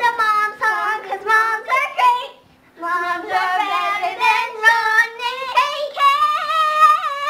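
A child singing a made-up song in a high voice, breaking off briefly about two and a half seconds in and ending on a long held note.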